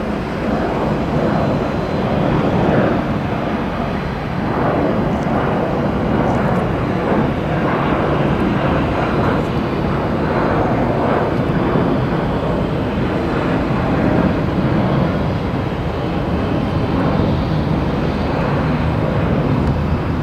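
Boeing 737 jet engines at climb power just after takeoff, heard from the ground as a steady, loud rumbling jet noise.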